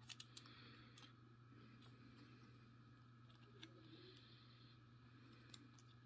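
Near silence with a low steady hum, broken by a few faint metallic clicks: several in the first second, one in the middle and a couple near the end. The clicks are typical of a lock and small tools being handled.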